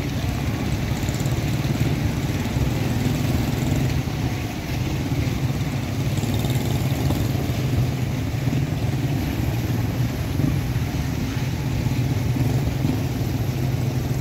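Small motorcycle engine running steadily at low speed, a constant low drone with road and wind hiss over it.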